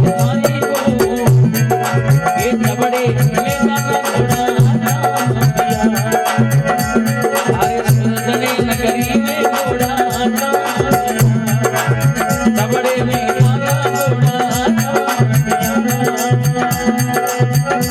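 Instrumental passage of folk bhajan music: a fast, even hand-drum and rattle rhythm over a steady low note, with a wavering melody line above.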